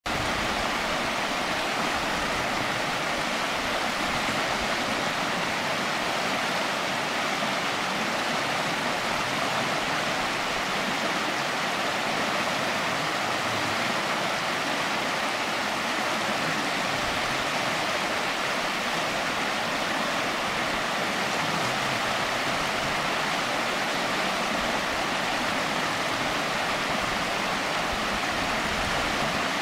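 Shallow river water rushing over rocks in small rapids: a steady, even rush that does not change.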